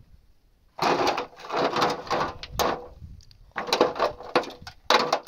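Rocks and dry earth scraped and handled on a stony cave floor, with stones going into a metal basin. It comes in rough bursts starting about a second in, with one sharp clink a little before the middle.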